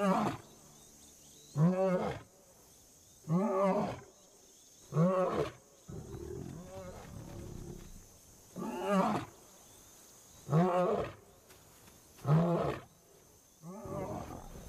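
Male African lion roaring: a bout of about eight deep calls, each rising and then falling in pitch, repeated every second and a half to two seconds.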